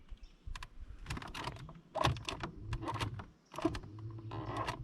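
A quick, irregular run of clicks and knocks from fishing gear being handled in a small boat, while a snagged line is being dealt with.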